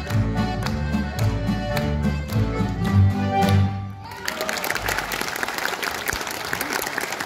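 A swing tune on two accordions, archtop electric guitar and upright double bass, with a steady beat, ends about four seconds in, and the audience applauds for the rest.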